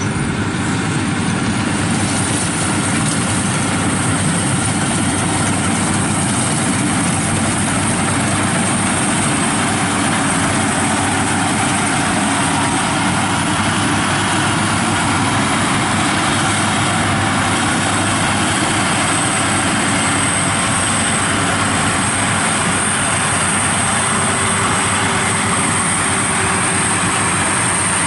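Crawler rice combine harvester running steadily as it cuts rice: a dense, even engine and machinery noise with a thin high whine over it.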